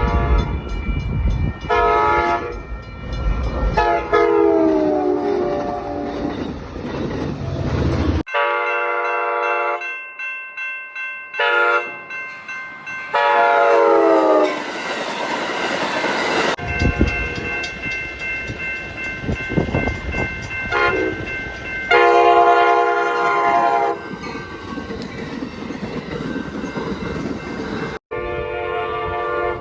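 Passenger cab car train horns, 8300-series, sounding multi-note chords in a run of short and long blasts across several separate clips. In some blasts the pitch drops as the train passes, and rail wheel noise runs underneath.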